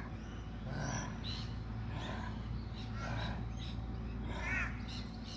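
A crow cawing repeatedly, a string of harsh calls about a second apart, the loudest near the end, over a steady low background rumble.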